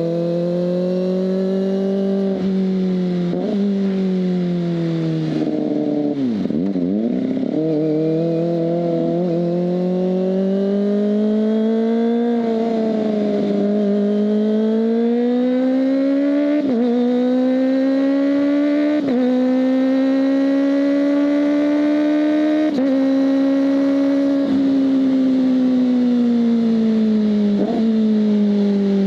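Kawasaki ZX-25R's 250 cc inline-four engine running, its pitch rising and falling gradually for the whole stretch, with brief breaks and jumps in pitch every few seconds.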